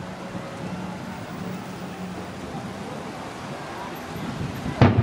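Aerial firework shell bursting with one loud boom near the end, followed by a short echoing tail. Before it there is only a low, steady background rumble.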